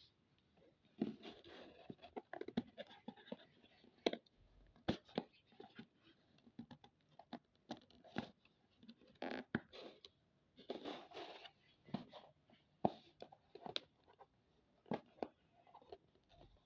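Handling noise from a small plastic humidifier and its parts: scattered light clicks and knocks with short stretches of scraping and rustling.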